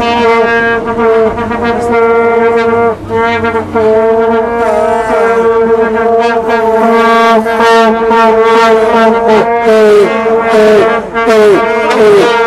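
Vuvuzela (plastic stadium horn) blown in a long, steady, loud blare. Near the end it breaks into shorter blasts, each sagging in pitch as it ends.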